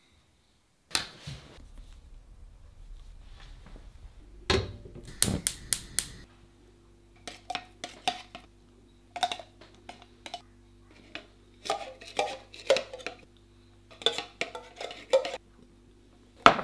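A metal tin can being handled and opened: a run of sharp metallic clicks and clanks in irregular clusters, with one loud click near the end.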